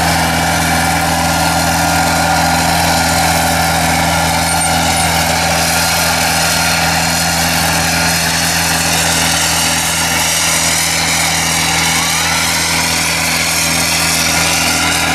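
Tyler Patriot XL self-propelled sprayer's engine running steadily as the machine drives past, spraying.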